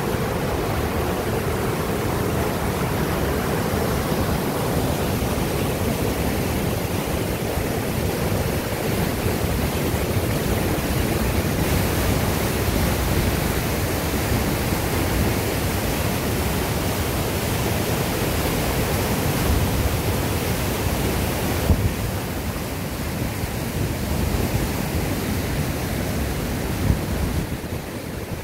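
Mountain stream pouring over rock ledges in a small waterfall, white water rushing and churning between boulders in a steady, dense rush. It turns hissier for about ten seconds in the middle.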